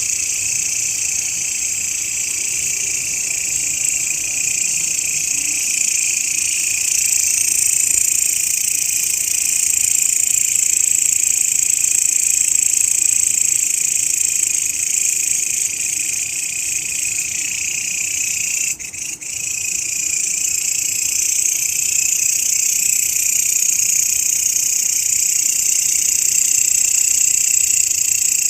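Grasshopper song: a continuous, high-pitched, shrill buzz, with one brief break about two-thirds of the way through.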